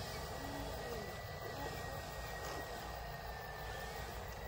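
Small electric motor and gearing of a radio-controlled toy tractor giving a steady high whine as it drives slowly over dirt, over a low rumble.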